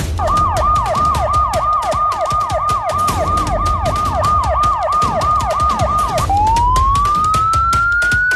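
Police vehicle siren in fast yelp mode, a falling sweep repeated about three times a second. About six seconds in it switches to a slow rising wail. A low rumble runs underneath.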